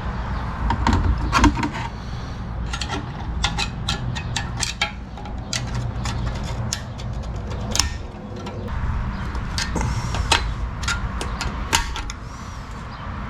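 Small metal transmission parts and tools clicking and knocking as they are handled and fitted, scattered light clicks throughout, over a steady low hum.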